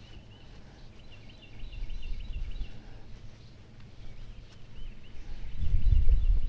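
A songbird singing phrases of quick, repeated chirping notes, a few times over, with a low rumble that swells about a second and a half in and again near the end.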